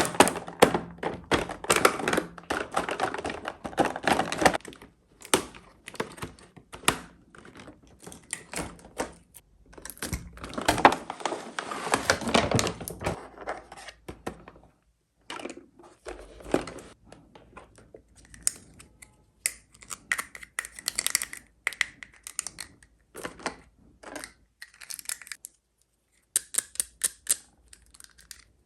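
Toy unboxing handling sounds: two long stretches of packaging rustling and tearing, with scattered clicks and taps of small plastic toy pieces being picked up and set down between them.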